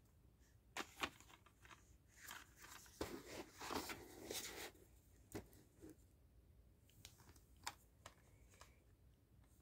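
Plastic DVD cases being handled: a few sharp clicks and taps, with a stretch of crinkling plastic packaging in the middle.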